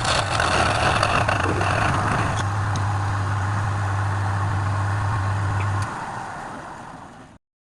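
Wood lathe running with a steady motor hum and a rushing spin noise. About six seconds in the hum stops and the noise dies away as the lathe winds down.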